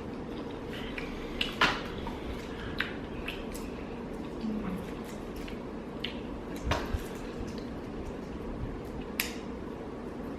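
Eating sounds of a shrimp boil eaten by hand: a handful of separate wet clicks and smacks as boiled shrimp are peeled and eaten, over a steady background hum.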